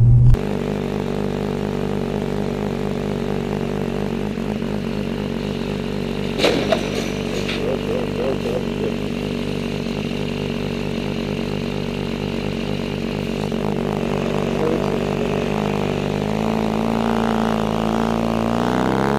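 Motorcycle engine running steadily at low revs, with a brief sharp noise about six seconds in. About three-quarters of the way through, the engine note rises and holds higher as the bike pulls away.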